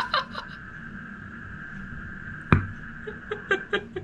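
Hammer blows on a plastic fitness band resting on a wooden block, as the band is broken open: one sharp knock about two and a half seconds in, then a quick run of lighter taps near the end.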